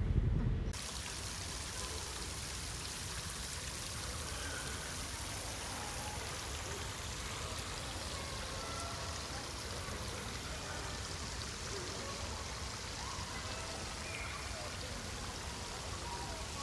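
A short burst of wind noise on the microphone, then the steady splash and trickle of water falling in a tiered indoor fountain, with faint voices echoing in the hall.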